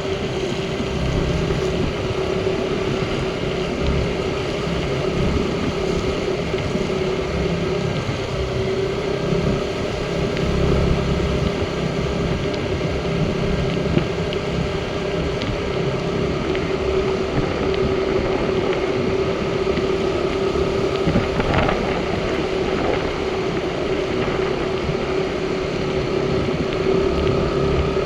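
Motorcycle engine running steadily while riding, with a constant hum and wind buffeting the microphone.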